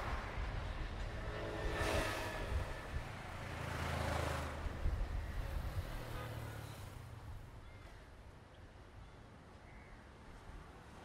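Diesel engine of a Sri Lanka Railways DMU power set running with a low, steady rumble as the train moves away, fading out over the second half.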